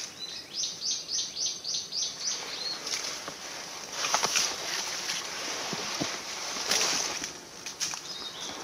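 Footsteps crunching through dry leaf litter and undergrowth, with branches and leaves brushing and crackling past. A bird calls over the first few seconds in a quick series of about seven high notes.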